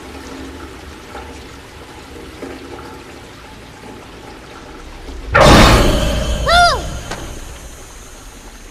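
Rainwater and runoff pouring steadily into a street storm drain. About five seconds in, a sudden loud rush lasts a second or so, with a short high tone that rises and falls.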